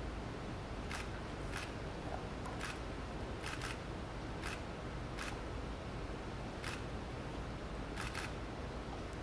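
Steady low room hum with about ten light, sharp clicks and rustles at irregular moments, from the dancer's fringed regalia and body moving as he kneels and lifts the wolf pelt.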